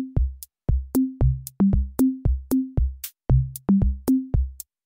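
Electronic intro music: a drum-machine beat of short, pitched low drum hits with sharp clicks on top, the pattern repeating about every second and a half.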